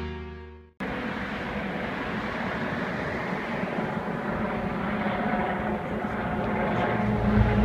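Helicopter in flight: a steady engine and rotor noise that slowly grows louder.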